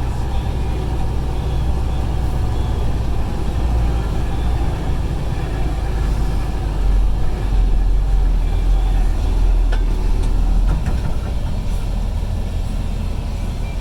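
A vehicle engine running with a steady deep rumble, heavier for a few seconds in the middle.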